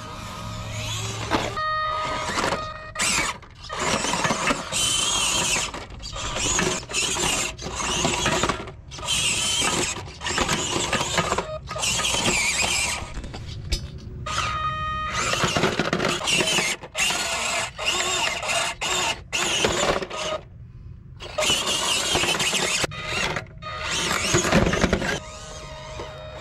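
Electric motor and gear drive of a 1/18 scale RC crawler truck whirring in repeated short bursts, stopping and starting many times as the throttle is worked.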